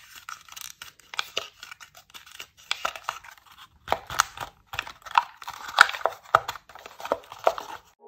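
Folded paper clicking and crinkling as an origami Simple Dimple paper fidget toy is pressed and handled, in irregular quick clicks that grow louder and denser about halfway through.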